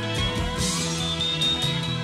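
Background music with guitar playing.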